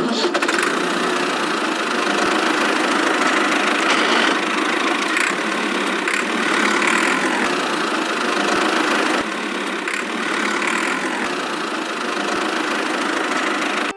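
Small motor of a DIY miniature machine running steadily, a dense whirring mechanical noise that drops slightly in level about nine seconds in.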